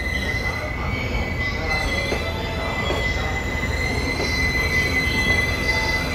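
GV-E197 diesel-electric ballast train with hopper cars rolling slowly into the platform under braking, with a steady high-pitched squeal from its wheels over a low running rumble.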